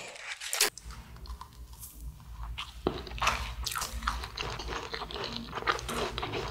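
Close-miked biting and chewing of a convenience-store macaron: a sharp bite about three seconds in, then steady chewing with many short, crisp crackles.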